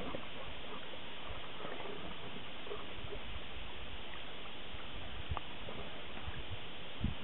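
Steady outdoor hiss with faint scattered knocks and splashes as a swimmer hauls himself into a water-filled canoe, a short knock about five seconds in and a low thump near the end.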